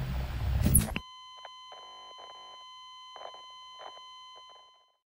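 Video static hiss over a low hum, ending in a short rising sweep about a second in, then a steady high electronic beep tone that fades out near the end.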